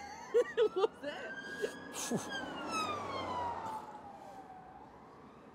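Emergency vehicle siren sounding one slow wail: it rises over the first second, holds, then falls and fades away over the next few seconds. Short bits of voice are heard over it at the start.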